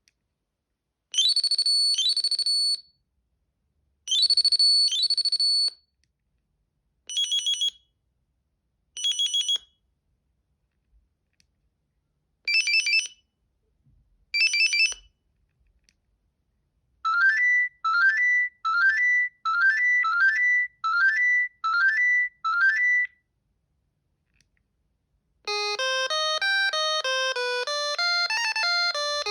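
Alcatel OT 715 mobile phone playing several of its original ringtones and alert tones in turn, all synthesized electronic tones. First come two paired warbling beeps, then short paired chirps, then a quick run of about seven rising chirps. Near the end a multi-note ringtone melody starts.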